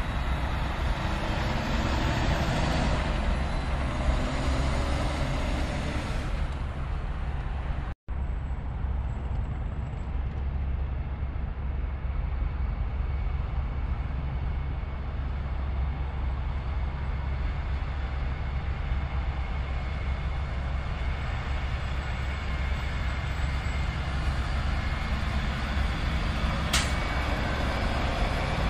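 Tractor-trailer diesel engines and highway traffic running, a steady low rumble under a haze of tyre noise. It cuts out for an instant about eight seconds in, and a brief sharp high sound comes near the end.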